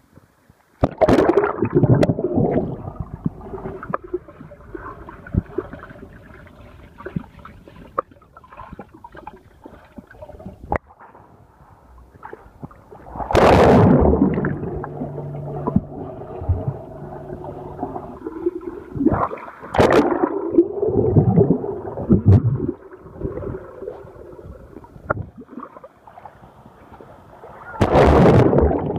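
Pool water heard with the microphone underwater: muffled gurgling and bubbling, broken by loud splashes about a second in, around the middle, about two-thirds through, and near the end. A low steady hum runs for a few seconds after the middle splash.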